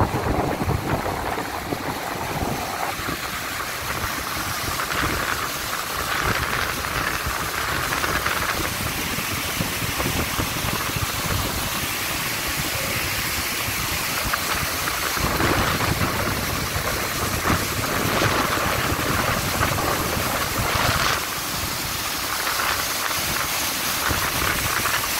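Whitewater of a mountain stream cascading down a rocky chute: a steady rushing noise.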